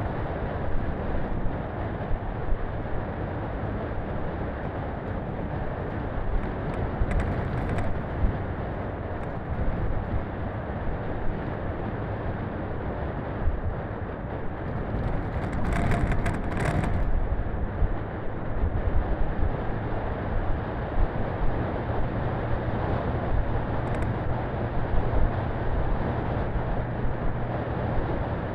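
Daihatsu Feroza 4x4 driving slowly along a rough gravel track: engine running steadily under tyre and road rumble, with frequent knocks and rattles as it jolts over bumps. A brief harsher scraping noise comes a little past halfway, and a steady low hum sets in about two-thirds of the way through.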